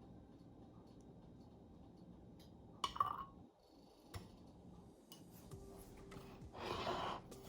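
Quiet kitchen handling while coating potato balls in breadcrumbs: a sharp clink about three seconds in, and a short rustle of crumbs near the end.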